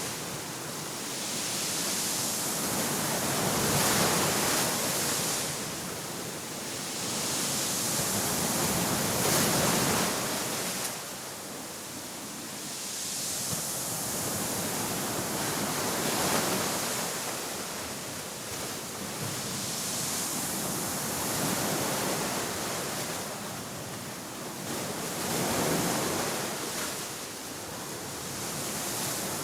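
Ocean waves breaking and washing on a shore, a continuous wash that swells and ebbs every few seconds.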